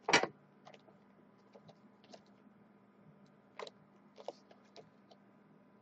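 Cardboard trading-card boxes being handled and set on a glass tabletop: one sharp knock right at the start, then a scattered handful of light taps and clicks.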